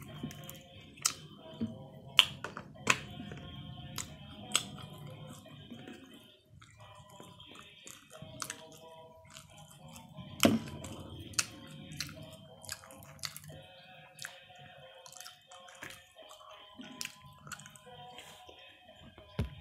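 Background music, with a person chewing toasted sandwiches over it and many short, sharp clicks and smacks from eating.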